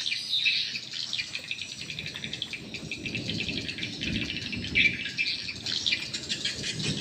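A crowd of swiftlets twittering: a dense, continuous stream of rapid, high chirps. A rough low rumble runs underneath and grows stronger from about three seconds in.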